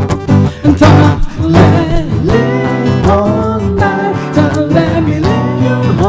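A man singing in Thai to a strummed acoustic guitar: a live acoustic pop-ballad performance.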